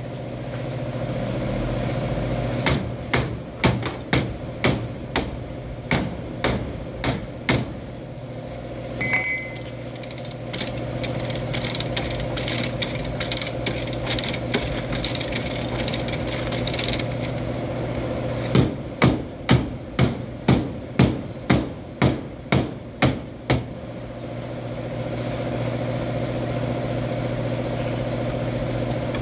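Hammer blows on the damaged sheet-metal rear body of a Hyundai Sonata being straightened: two runs of about a dozen quick strikes, a few seconds in and again about two-thirds of the way through, with a single ringing metallic knock between them. A steady machine hum runs underneath.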